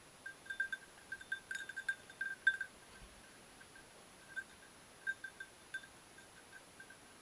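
Small bell on a hunting setter's collar ringing in irregular clusters as the dog moves and noses through the undergrowth, busiest and loudest in the first couple of seconds and more scattered later.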